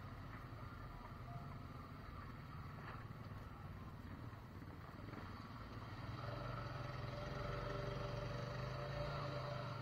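Off-road engines running at low speed: a quad's engine running steadily, then a second engine grows louder about six seconds in as a side-by-side UTV comes close.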